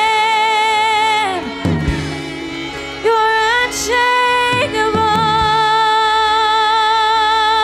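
A woman singing long, high held notes with vibrato in a worship song, each note sliding down at its end, backed by keyboard and electric guitar.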